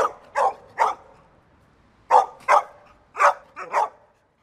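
A dog barking in short, sharp barks: three quick barks, a pause of about a second, then two more groups of barks.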